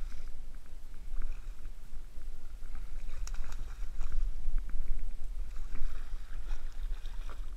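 A hooked bluefish thrashing and splashing at the surface beside a kayak, in short irregular splashes, with wind rumbling on the microphone.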